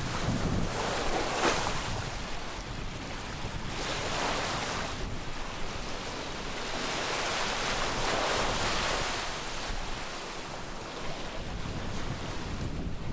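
Small sea waves breaking and washing up the shore, swelling and fading about every three to four seconds, with wind buffeting the microphone.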